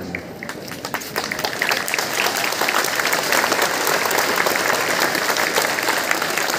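Crowd of schoolchildren clapping: scattered claps about a second in quickly build into steady, dense applause.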